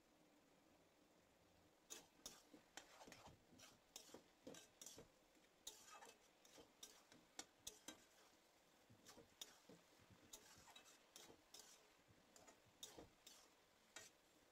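Metal spatula stirring chopped bottle gourd and fish in an aluminium kadai, scraping and clinking irregularly against the pan, starting about two seconds in.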